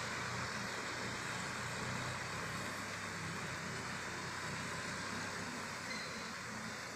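Distant tractor engine running steadily as it pulls a round hay baler, heard as a low hum under an even hiss.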